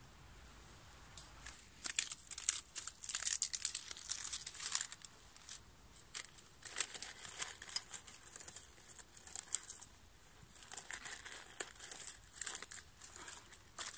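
A small stuff sack rustling and crinkling in irregular bursts as a hand rummages inside it. It starts about a second in.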